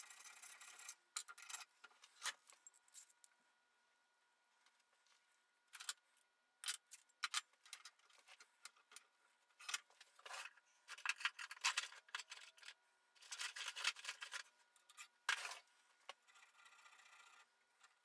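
Short, faint, intermittent scrapes of a small steel hand tool on a steel pipe, with a few light clicks between them, as the groove locations are marked out on the pipe.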